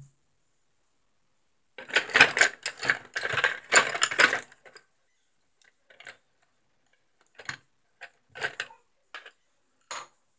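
A quick clatter of small hard objects knocking together for about three seconds, followed by scattered single clicks and taps: paintbrushes and painting gear being handled on a wooden table.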